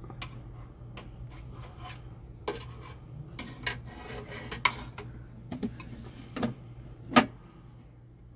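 Plastic toy pan, spatula and play food knocking and scraping against a wooden play kitchen: a string of light knocks and scrapes, the sharpest knock about seven seconds in, over a steady low hum.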